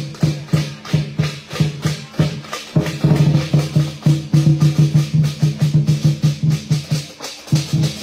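Lion dance drum beaten in quick, steady strokes with cymbals clashing on the beat; the strokes come faster about three seconds in, about five a second, and stop briefly near the end before resuming.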